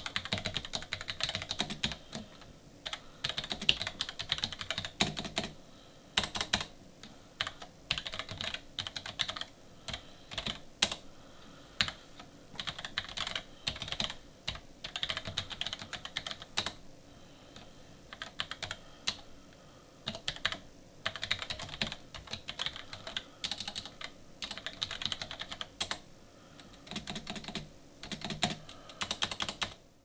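Typing on a SteelSeries Apex M800 mechanical keyboard with low-profile QS1 switches: quick runs of key clicks broken by short pauses, with a hefty clonk from the large space bar each time it is pressed.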